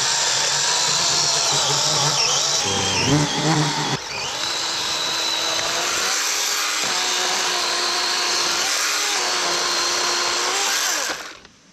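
DeWalt battery-powered chainsaw running and cutting through a fallen tree, its electric motor whine shifting in pitch as the chain loads up in the wood. It stops suddenly near the end.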